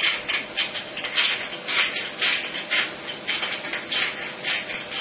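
Pepper mill grinding peppercorns as it is twisted back and forth, a rapid run of crunching grinds about three a second.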